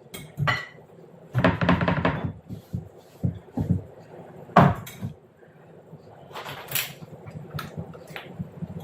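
Kitchen clatter of jars and utensils being handled and set down on a counter: scattered knocks and rattles, with one sharp knock a little past halfway.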